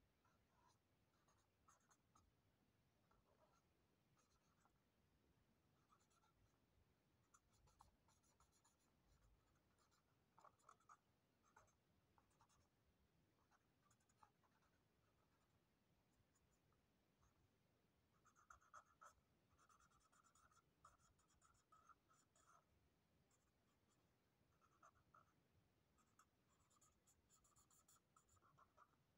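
Felt-tip marker drawn across paper in faint, short, irregular strokes, with busier runs of strokes about two-thirds of the way through and near the end.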